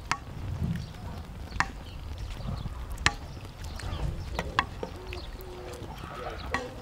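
Knife chopping on a cutting board: four sharp chops about a second and a half apart, over a low steady rumble.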